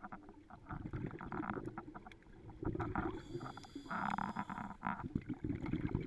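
Scuba diver breathing underwater through a regulator: exhaled bubbles gurgling and rumbling past the camera, coming and going in bursts.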